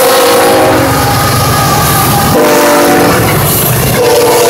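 Diesel locomotive air horn blowing a grade-crossing signal as a fast freight train passes close by. A held chord ends about a second in, a short blast follows about halfway through, and a long blast begins near the end. The locomotives' engines and the rumble and clatter of the wheels on the rails fill the gaps between blasts.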